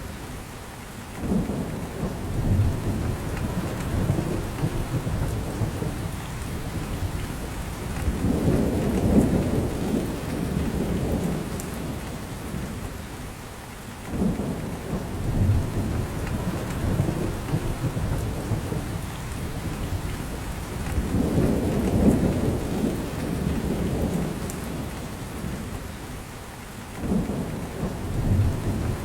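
Steady rain, with a low rumble that swells and fades every several seconds.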